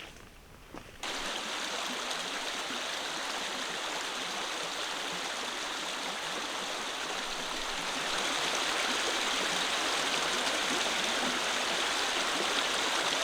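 Steady rushing of a flowing stream, starting abruptly about a second in and a little louder from about eight seconds on.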